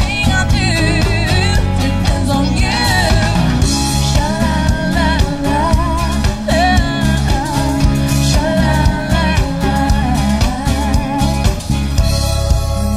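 Female lead vocalist singing a pop song live with a band, drum kit and electric bass steady underneath her voice.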